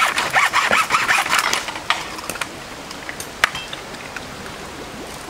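A dense run of rapid scraping and rattling for the first couple of seconds, then quieter, with a few light clinks of plates and dishes being handled, one of them ringing briefly.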